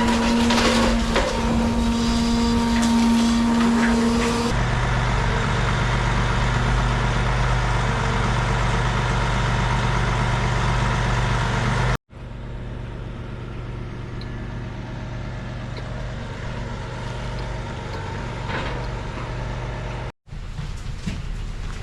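Heavy vehicle's diesel engine running steadily. The sound cuts off abruptly twice and changes pitch between the pieces.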